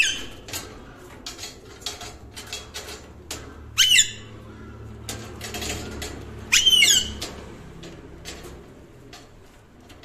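Alexandrine parakeet screeching: three harsh calls, one at the very start, one about four seconds in, and a longer one near seven seconds, with scattered light clicks in between.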